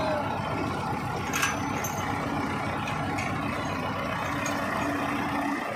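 Tractor diesel engine idling steadily, with a few light clinks about one and a half seconds in.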